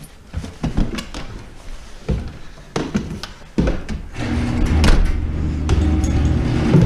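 A door being opened, with a few knocks and clicks, then a steady low mechanical hum that starts about four seconds in.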